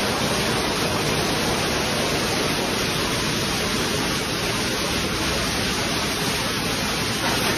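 Steady rush of water flowing through a shallow stone channel and spilling over a low ledge, an even, unbroken noise.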